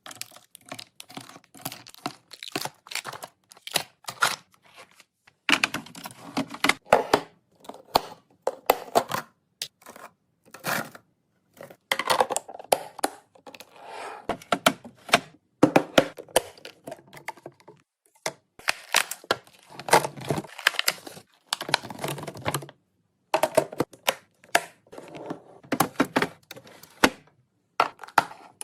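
Snack and fridge restocking: packaged snacks and plastic containers clacking and tapping as they are handled and set down, with crinkling wrappers and brief tearing of packaging. An irregular run of clicks and rustles with short pauses.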